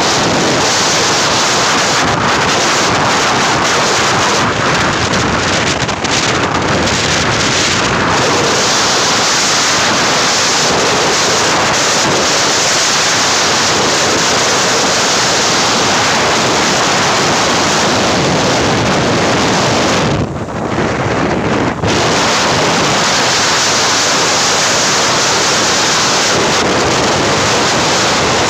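Wind rushing over the microphone of a moving motorcycle, a loud steady rush that briefly eases about twenty seconds in.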